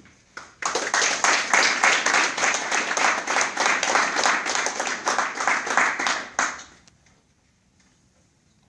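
A small group applauding, the clapping starting about half a second in and dying away after about six seconds.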